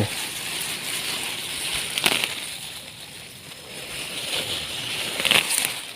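Rustling and crackling of gotu kola leaves and stems handled while being picked by hand, with sharper crackles about two seconds in and again near the end.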